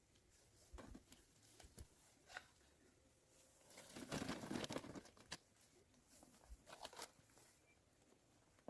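Faint rustling and crinkling, with one louder burst lasting about a second and a half around the middle and scattered light clicks before and after.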